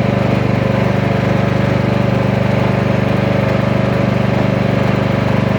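Small engine of a riding lawn mower running steadily at a constant speed, with an even, fast pulsing beat.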